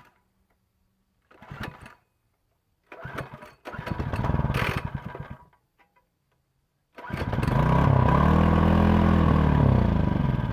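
A Predator small gas engine being pull-started. After a couple of short pulls of the recoil starter, it fires at about seven seconds on a splash of fuel. It runs for about three seconds, its speed rising and then falling away as it dies.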